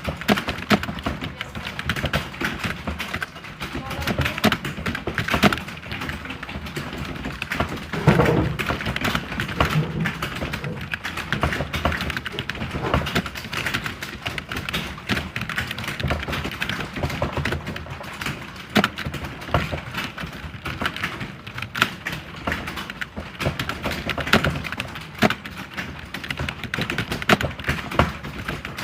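Computer keyboard being typed on continuously: quick, irregular key clicks and taps, several strokes a second, without a break.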